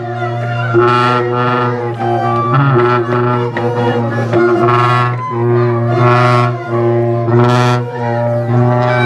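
An ensemble of Andean wind players blowing long end-blown pipes and flutes together, playing a repeating tune over a steady low drone, with brighter high notes swelling about once a second.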